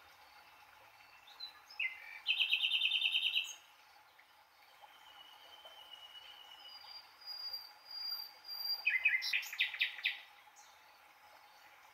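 Songbirds calling: a fast trill a little after two seconds in, a few thin drawn-out whistles, then a burst of quick chirps near the end.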